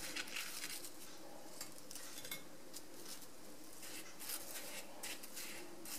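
Faint scratching and scattered light ticks of a fried banana fritter being rolled by hand through granulated sugar on a ceramic plate.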